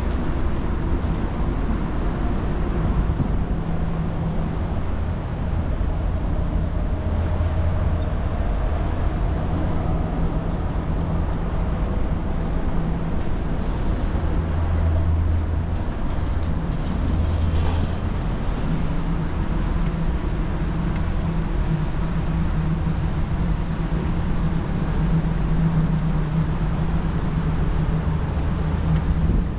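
Steady rumble of city street traffic, with a constant low engine hum running underneath.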